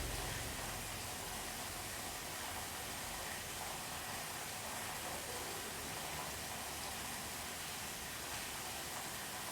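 Steady rain heard from indoors, an even hiss, with the tail of a low thunder rumble dying away in the first second.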